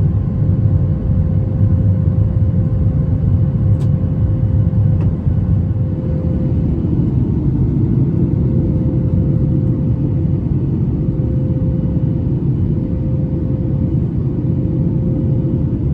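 Boeing 737 MAX 8 airliner cabin noise: a steady low rumble of engines and airflow with a constant hum over it.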